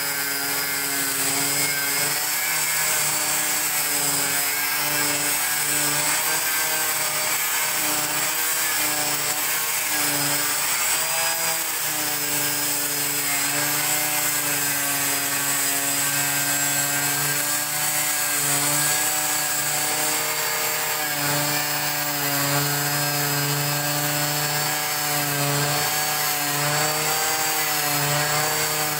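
Handheld angle grinder running steadily as it cuts along a line in a 5 mm acrylic sheet, its motor whine wavering slightly in pitch as the disc bites.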